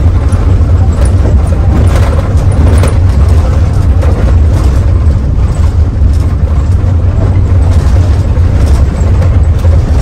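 Inside a moving Mercedes-Benz OH 1521 bus: loud, steady low diesel-engine drone with road noise and light knocks and rattles.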